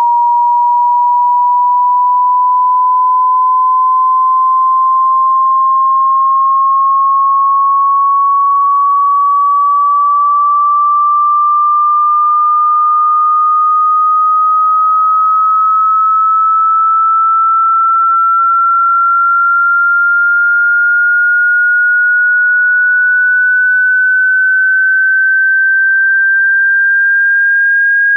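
Pure sine-wave test tone gliding slowly and steadily upward in pitch, from just under 1 kHz to about 1.6 kHz: a stretch of a 20 Hz to 20 kHz hearing-test frequency sweep.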